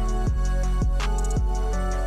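Background music with a steady beat of about two low drum thumps a second under sustained notes.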